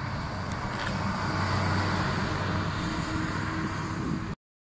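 City bus engine running as the bus drives past, over street traffic noise, a little louder about two seconds in; the sound cuts off abruptly near the end.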